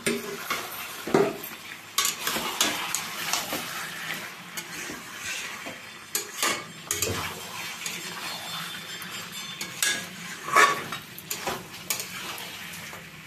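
Metal spatula scraping and knocking against a metal kadai as chicken and fried potatoes are stirred in spiced oil, with the oil sizzling under it. The meat is at the kosha stage, being browned in the masala until done. The strokes are irregular, with the sharpest knocks about a second in and again near the end.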